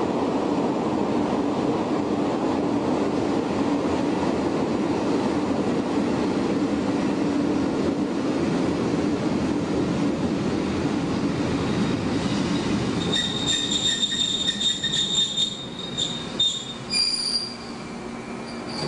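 Shin-Keisei 500-series electric train with nose-suspended traction motors running, heard from the cab as a steady heavy motor and gear noise. About thirteen seconds in, the motor noise fades and high-pitched wheel squeals come and go.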